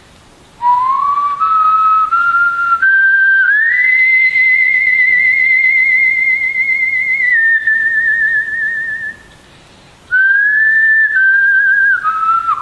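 A slow melody in a single pure, whistle-like tone with no accompaniment: it climbs note by note, holds a long high note with vibrato, breaks off for about a second, then steps back down.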